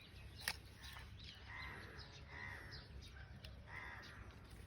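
A crow cawing three times, faint, with a single sharp click about half a second in.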